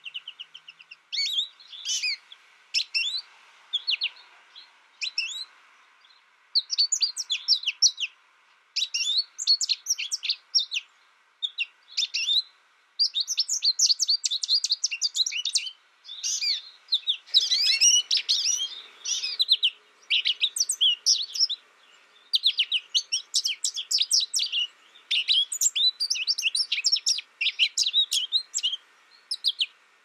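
American goldfinch singing: quick, high twittering chirps strung into long phrases, with short pauses between them.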